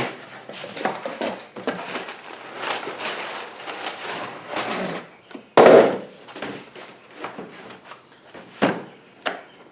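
Unboxing a torque wrench: cardboard packaging rustling and scraping as it is handled, with a loud thump a little past halfway and a couple of sharp knocks near the end.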